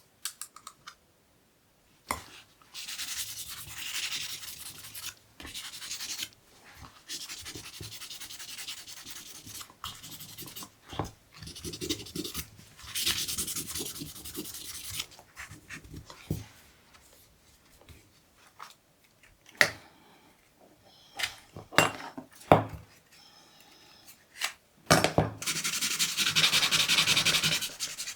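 Hand sanding or rubbing with an abrasive in stretches of a few seconds each. In the middle there are a few short knocks and taps, and a further stretch of sanding comes near the end.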